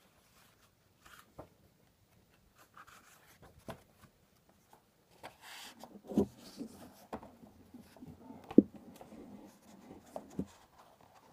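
Paperback book pages being leafed through and handled with gloved hands: paper rustling and rubbing, with a few short soft knocks, the sharpest about three-quarters of the way through.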